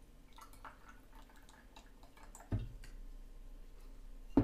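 Vodka poured from a glass bottle into a shot glass: a light trickle with small glassy ticks, then a dull knock about halfway through and a louder knock at the very end as glass is set down on the wooden table.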